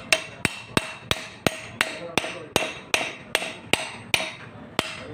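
Steady hammer blows on metal, about three a second at an even pace, each with a short metallic ring, while a Yanmar harvester gearbox is being fitted.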